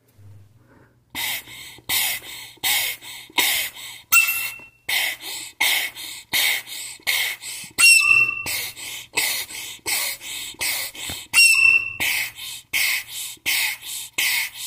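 Soprano recorder blown in short, airy puffs about one and a half times a second, mostly breathy hiss rather than clear notes. Three times a puff breaks into a brief squeaky high note.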